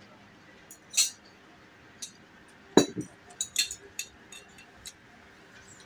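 Metal cutlery clinking against a small ceramic plate, a string of short sharp clinks, with a heavier knock about three seconds in as the plate is set down on the table.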